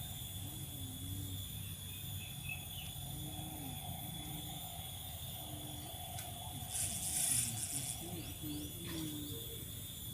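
Insects chirring steadily in a constant high drone, with a short hissing rustle about seven seconds in.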